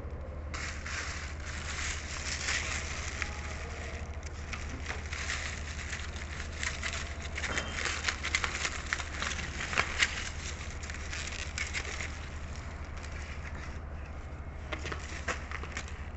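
Close-up eating sounds: crackly crunching and chewing with many small clicks, two sharper ones about ten seconds in.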